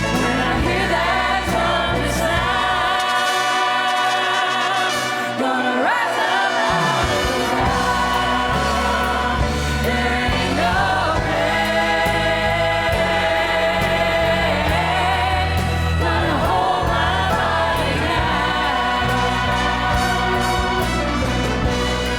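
Church choir singing a gospel song with orchestra accompaniment. The bass drops out for a few seconds near the start, then comes back in.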